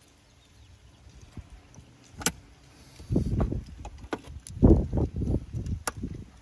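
Handling noise from taking apart an iPhone: light clicks and taps of small tools and metal parts, with dull knocks. Two sharp clicks stand out, one about two seconds in and one near the end.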